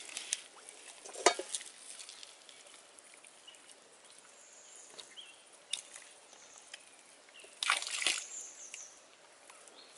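Hands rubbing a wet spice masala into raw chicken pieces in a steel bowl: intermittent squelching and slapping of the wet meat, with sharper handling noises about a second in and again near eight seconds.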